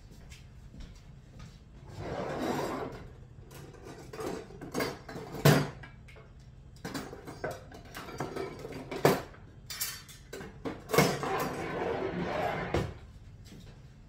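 Kitchen clatter: dishes and utensils being handled and set down, with rummaging and several sharp knocks, the loudest about five and a half seconds in.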